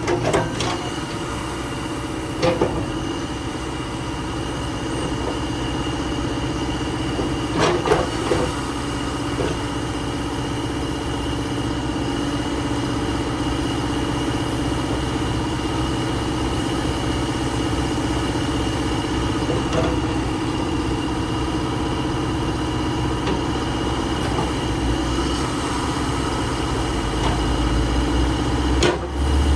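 JCB 3CX14 backhoe loader's diesel engine running steadily, with a few short knocks or clanks on top of the drone.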